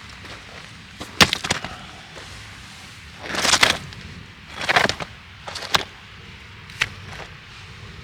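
A series of sharp knocks and cracks, with two short rustling bursts in between.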